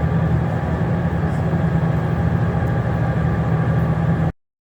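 Steady low engine drone with a constant hum, cutting off suddenly near the end.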